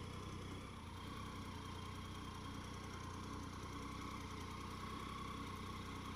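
Triumph Tiger 800 XC motorcycle's three-cylinder engine idling steadily at low revs, faint.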